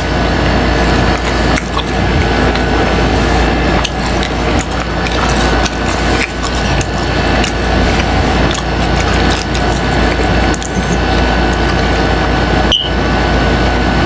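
Close-miked clicks and rustles over a steady hiss, with a drink being sucked up through a plastic straw later on.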